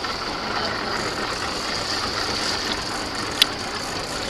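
Boat engine running steadily under wind and water noise, with one sharp click about three and a half seconds in.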